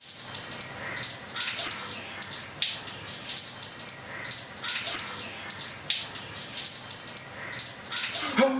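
Water running and splashing irregularly as a man bathes.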